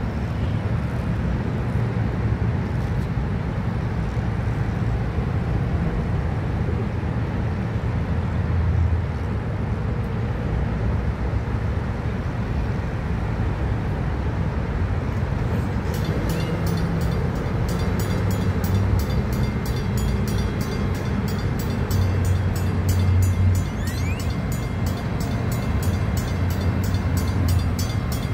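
Railroad crossing warning bell, a mechanical bell, ringing in rapid, evenly spaced strokes from about halfway through as the crossing activates and its gates begin to lower. Before that there is only a steady low rumble of outdoor background noise.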